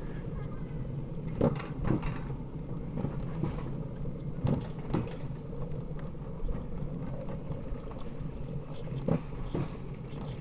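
Alpine coaster sled running fast down its tubular steel track: a steady rumble of the wheels on the rails, with a few short sharp knocks along the way.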